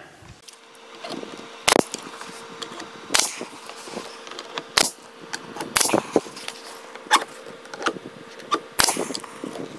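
Pneumatic brad nailer firing nails through corner trim into a wooden cabinet side: a series of sharp single shots, irregularly spaced about a second apart, over a faint steady hum.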